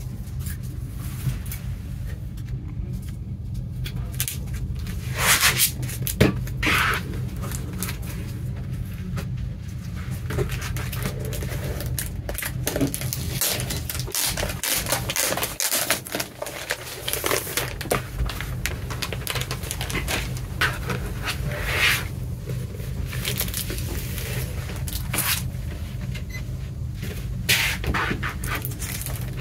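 Handling of a vinyl LP package: the plastic outer sleeve crinkling, the cardboard jacket scraping and sliding on a table, and the record's inner sleeve rustling as it is drawn out, in irregular bursts over a steady low hum.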